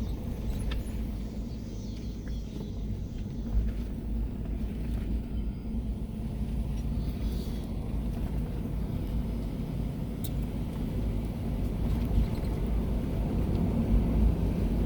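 Car rolling along an unpaved dirt road, a steady low rumble of tyres and engine inside the cabin, with a few small knocks and rattles.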